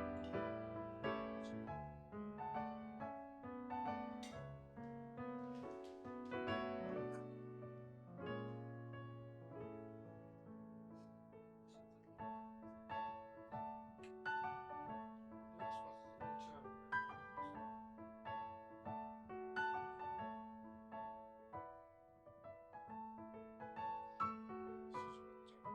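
Background piano music: a gentle melody of single held notes over a lower accompaniment.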